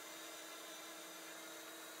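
Rough Country 9500 Pro Series electric winch reeling in its synthetic rope while it pulls a tractor, its motor and gears giving a steady whine.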